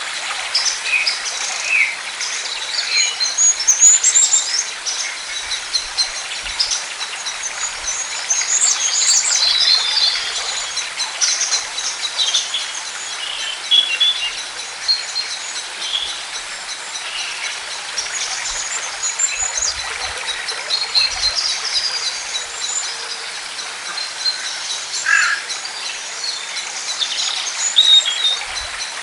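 A chorus of many songbirds chirping and singing over one another, dense and continuous, over a steady background hiss.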